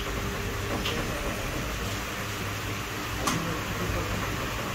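Steady room hum with two faint clicks, about a second in and again past three seconds.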